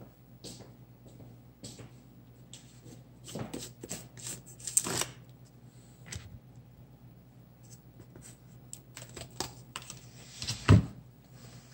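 Rustling, clicking and knocking of craft supplies being handled on a work table, with a sharper knock near the end.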